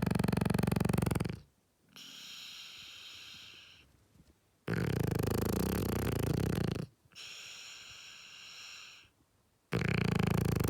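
French bulldog snoring loudly in its sleep: long rattling snores about every five seconds, each followed by a quieter hissing breath.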